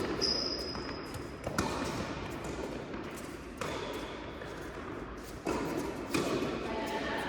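Tennis ball struck by rackets in a rally on an indoor court: four sharp hits, the first three about two seconds apart and the last close after the third, each followed by a short echoing tail.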